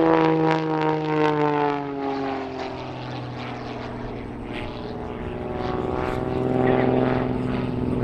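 Aerobatic MXS plane's piston engine and propeller flying past. The engine note falls in pitch and fades over the first few seconds, then grows louder again at a steady pitch about two-thirds of the way through.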